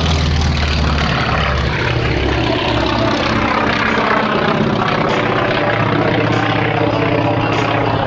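Propeller aircraft's piston engine droning steadily, with a slight shift in pitch near the start.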